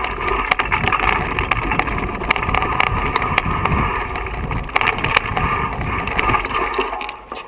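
Mountain bike riding fast down rocky singletrack, heard from a camera on the bike: a continuous clatter of tyres over loose stones and the bike rattling over the rough ground, with wind rushing on the microphone. The clatter eases off just before the end.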